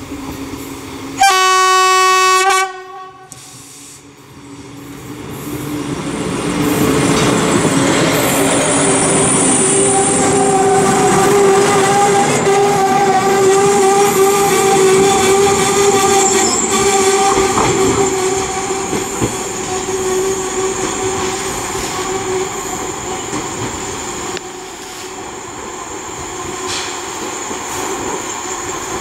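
Diesel railbus sounding one long horn blast about a second in, then running past with its engine working and its wheels rolling on the rails, a steady whine over the running noise. The sound eases off as it draws away into the tunnel.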